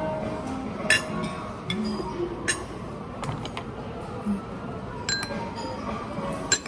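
A spoon clinking against ceramic bowls and plates while eating: about half a dozen sharp, irregularly spaced clinks over a murmur of voices in the background.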